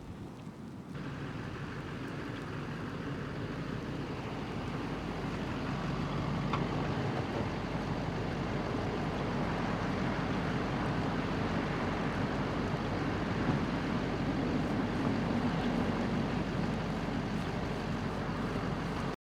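An engine running steadily, with a low hum under a rushing noise, growing louder over the first several seconds and then holding steady.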